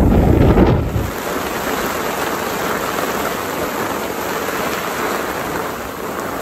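Wind buffeting the microphone for about the first second, then heavy rain falling steadily.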